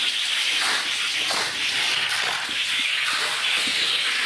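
Two Matchbox die-cast toy cars rolling fast down a plastic race track: a steady rushing hiss of small wheels on plastic, with faint ticks as they pass the track joins.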